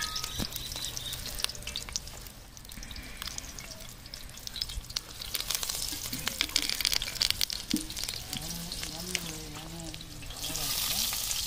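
Hot oil sizzling and crackling with many fine pops as banana-leaf-wrapped parotta parcels shallow-fry in a wide iron pan. The sizzle swells about five seconds in, as more parcels go into the oil.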